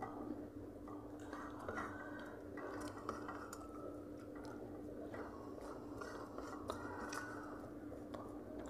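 Eating by hand from steel plates: chewing, with fingers mixing rice and curry and scattered light clicks and scrapes on the metal plates.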